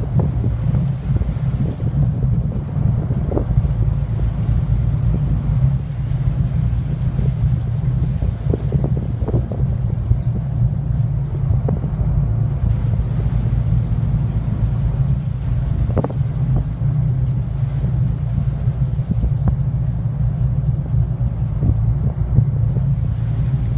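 A motor yacht's engines running steadily at low speed in a low rumble as the boat cruises slowly, with wind buffeting the microphone.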